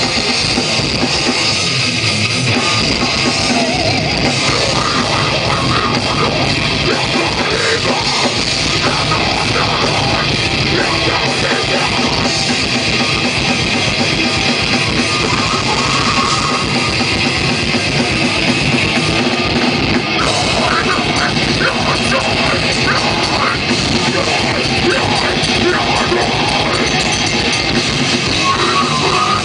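A rock band playing loud heavy music live, electric guitar over a pounding drum kit, dense and unbroken.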